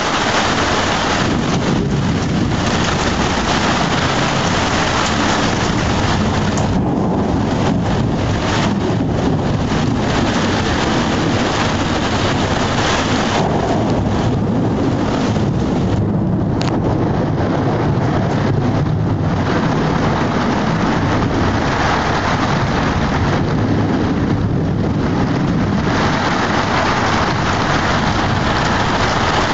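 Steady heavy rain during a thunderstorm, with low rolling thunder.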